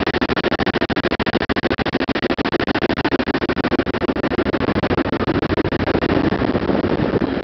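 Ferry's marine engine running steadily at a loud level, a rapid, even pulsing from the engine room.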